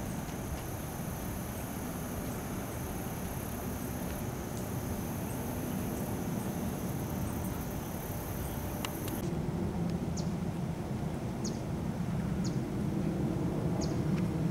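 Outdoor ambience: a steady high-pitched insect trill over a low, even rumble, cutting off abruptly about nine seconds in. After that, short bird chirps repeat every second or so over the rumble.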